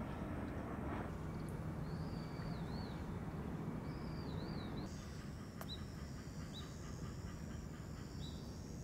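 Outdoor woodland ambience over a steady low background rumble. A bird gives two wavering, whistled calls in the first half, then three short chirps. From about halfway, insects add a steady high-pitched drone.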